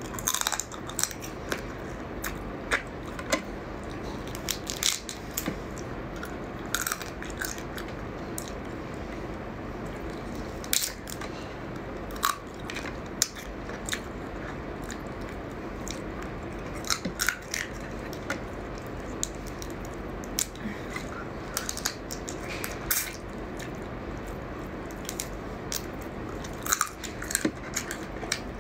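Close-up eating of raw crab: wet chewing and sucking of crab meat, with irregular sharp clicks and crackles of shell.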